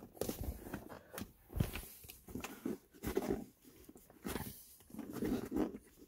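Hands tugging and working at a BMW M6's shift-boot trim surround: uneven rubbing and creaking of leather and plastic with scattered light clicks, as the stubborn retaining clips hold the panel in place.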